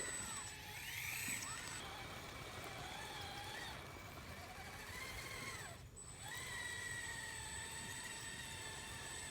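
Electric drive motors and gearboxes of RC model construction machines whining, the pitch rising and falling as the models speed up and slow down, with a short lull about six seconds in.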